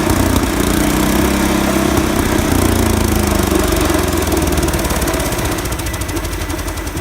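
A combustion engine running steadily with a slightly wavering pitch, fading somewhat over the last couple of seconds.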